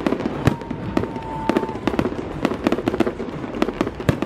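Aerial fireworks going off in quick, irregular succession: many sharp bangs and crackles, with a steady whistle lasting about a second, starting about half a second in.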